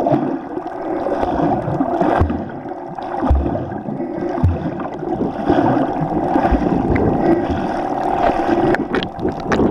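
Muffled underwater noise picked up by a submerged camera: a steady watery rumble, with several dull low thumps through the middle and a few sharp clicks near the end.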